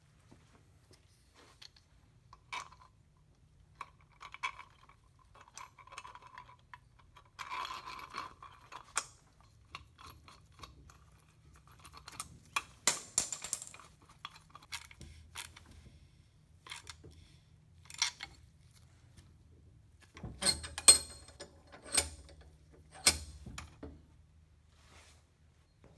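Scattered metal clinks and scrapes of hand work on a coil-spring strut clamped in a bench vise, as a 3D-printed plastic spacer is fitted onto the strut top. Near the end, a few heavy knocks as the strut is taken out of the vise.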